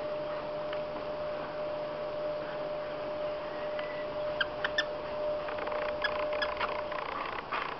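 Squeaky plush dog toy squeaking in short, high squeaks as a dog lies chewing it: a few squeaks about halfway through and more near the end. A faint steady whine sounds underneath and stops near the end.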